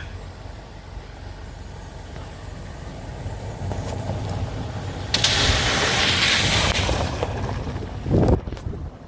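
Suzuki Jimny JB74 engine rumbling louder as it drives into water. About five seconds in comes a big splash of water lasting about two seconds, followed near the end by a loud low thump.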